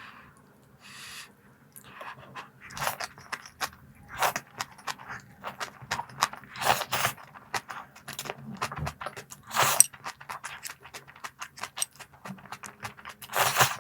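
Crunchy snacks being handled and eaten close to the microphone: irregular crisp crackles and crunches, with a few louder bursts spread through and one near the end.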